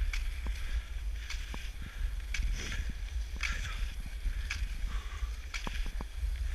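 Cross-country skis scraping and gliding over groomed snow, with sharp pole plants and stride strokes about once a second. A steady low rumble of wind buffets the microphone throughout.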